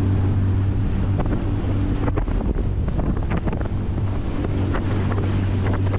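Small boat's outboard motor running with a steady low hum while the boat crosses choppy water, heavy wind buffeting the microphone and water splashing against the hull.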